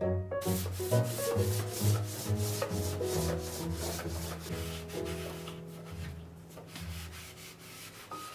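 Cloth wiping a wooden bookshelf panel in quick back-and-forth rubbing strokes, about three a second, easing off toward the end. Soft background music plays underneath.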